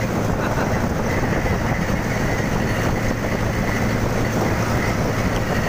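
Steady engine hum of the vehicle moving the maize thresher along the road, with constant road and wind noise, unchanging throughout.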